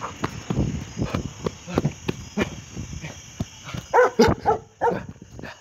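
Hurried footsteps and rustling, about three steps a second, then a dog barks several times in short, loud barks from about four seconds in.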